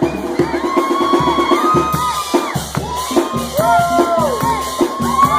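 Loud dance music with a steady, driving drum beat and a sustained melody over it.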